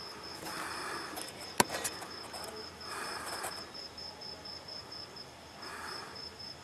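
Crickets chirping in a steady, evenly pulsed high trill, with a single sharp click about a second and a half in.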